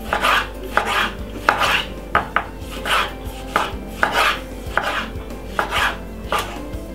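A kitchen knife dicing a tomato on a wooden cutting board. The blade knocks on the board in steady, unhurried strokes, about three every two seconds, with soft slicing between them.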